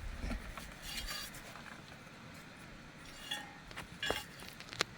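Faint clinks and small knocks of hard equipment parts being handled and fitted together, a few scattered clicks mostly in the second half.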